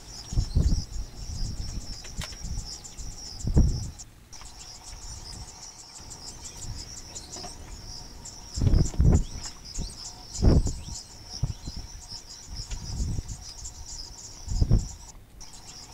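Insects chirping steadily in a fast, high-pitched pulsing trill. A few short, low thuds or gusts of noise break in about five times and are louder than the insects.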